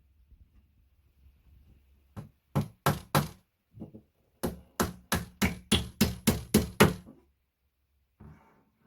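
A series of sharp knocks while a flat-pack bedside table is being assembled. A few separate knocks come about two to four seconds in, then a steady run of about nine, roughly three a second, ending after about seven seconds.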